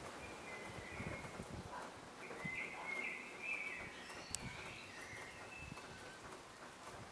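Small birds chirping and twittering in short, high notes over soft outdoor background noise.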